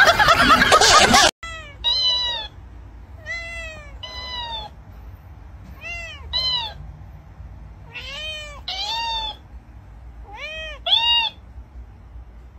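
A loud burst of noise that cuts off about a second in. Then a cat meows in short arching calls, each followed at once by a higher-pitched copy from a dancing cactus toy that records and plays back sounds, five meow-and-echo pairs in all.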